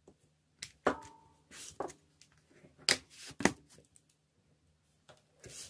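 Nail-stamping handling sounds: polish scraped across a metal stamping plate and a silicone stamper pressed onto it, heard as about half a dozen short scrapes and taps.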